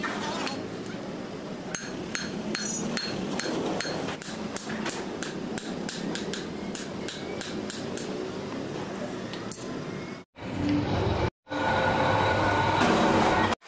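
Hand hammer striking a red-hot kukri blade on a steel anvil, a run of ringing blows at roughly three a second. After a break near the end, a louder steady rushing noise takes over.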